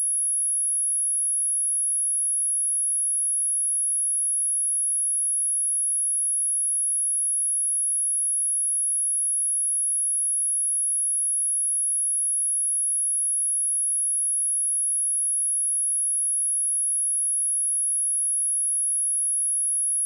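A single steady sine-wave test tone at 10726 Hz, a high-pitched whistle-like pure tone held at constant pitch and level, used for testing speakers and clearing dust and water from them.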